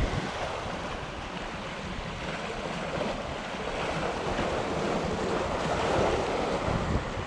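Sea waves washing and splashing against the boulders of a rock breakwater, swelling to a louder surge about five to six seconds in.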